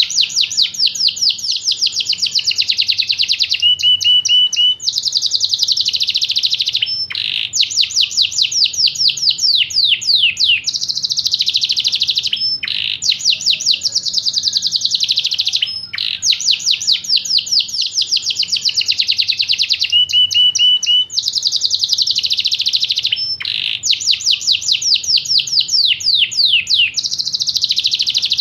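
Yorkshire canary singing a long, continuous song of fast trills and rapid runs of repeated notes, phrase after phrase with only brief pauses between them.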